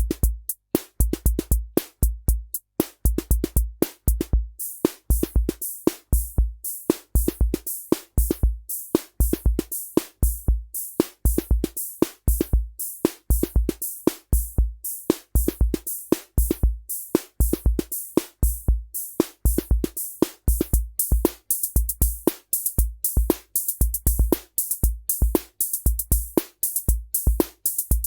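Korg SR-120 Mini Pops analog drum machine playing a rock rhythm pattern: a steady loop of low thudding bass drum hits with bright hissing cymbal and snare hits, with fills worked in.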